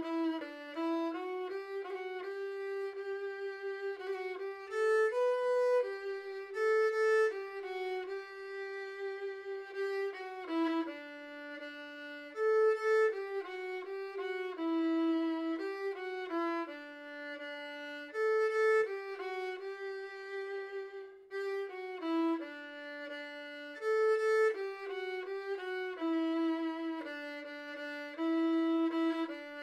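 Cretan lyra played solo with the bow: one line of held, sliding notes in a slow Greek song melody.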